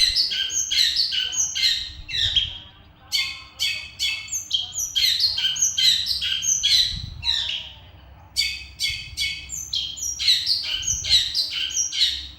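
A songbird singing loudly in three long phrases of rapid, repeated sweeping notes, with a short pause after about two and a half seconds and another near eight seconds.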